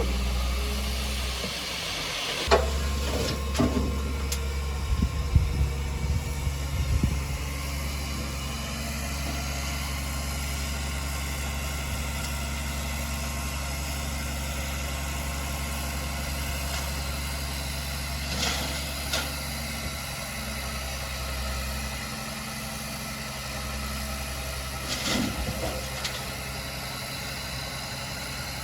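Heavy diesel engine of earthmoving equipment running steadily at a low drone, with a cluster of sharp knocks in the first several seconds and a few more near the end.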